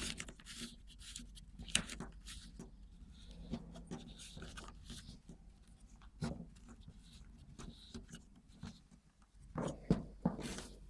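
Small clicks, knocks and scraping of parts being handled as a new cable is fastened into an electronic parking brake unit with its union nut, with a few louder knocks and a low steady hum underneath.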